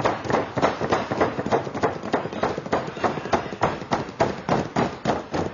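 Two people grappling on a mat: bodies scuffling and thumping, a rapid, irregular run of short knocks, several a second.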